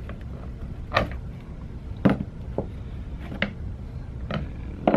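Six sharp clicks and taps of a metal pick and small metal and plastic parts as a 2002 Ski-Doo MXZ 700 recoil starter is pried apart, over a low steady hum.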